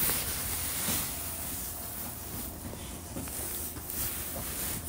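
Cabin sound of a JR Central 313 series electric train on the Tokaido Line: a low steady rumble that eases a little about a second in, with faint scattered clicks and rattles.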